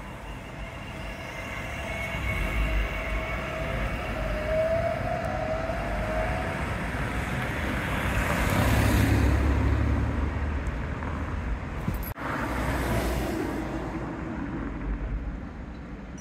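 Street traffic by a tram line: a rubber-tyred Translohr tram running past, with a faint sliding whine early on. A car drives past close about eight to ten seconds in, the loudest moment. There is a brief break in the sound about twelve seconds in, then steady traffic noise again as another tram approaches.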